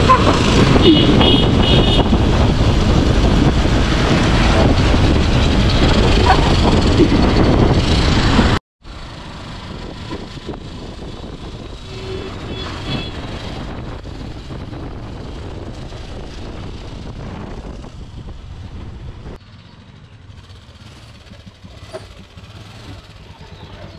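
Motorcycles riding along a town road, heard from a camera on one of the bikes: engine noise mixed with heavy wind rush on the microphone. The sound cuts briefly about nine seconds in and goes on quieter, then drops lower again near the end as the bikes slow down.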